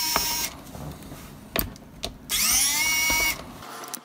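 Electric precision screwdriver running in two short bursts, each a whine that rises as the motor spins up and then holds steady, as it backs screws out of a plastic case. There is a single sharp click between the bursts.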